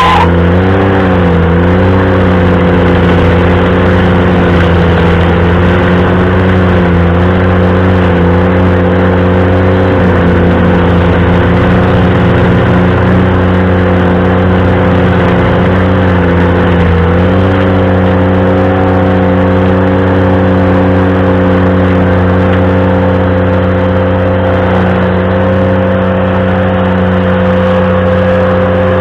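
Ventrac compact tractor engine running hard, driving a stump grinder attachment. The engine pitch wavers and sags for the first couple of seconds, then steps down twice as the load changes, about ten and seventeen seconds in. A brief high squeal comes right at the start.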